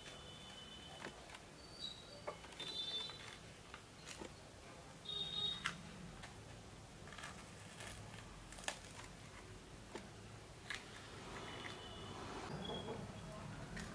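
Faint clicks and taps of a small knife and fingers against a ceramic plate as green chillies are slit open lengthwise, with a few short high squeaks among them.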